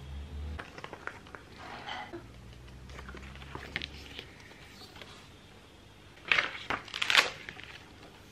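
Paper pages of a spiral-bound calendar being flipped over and handled, with faint rustling and light clicks, and two louder page turns about six and seven seconds in.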